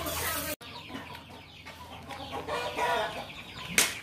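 Chickens clucking, with one loud sharp knock near the end.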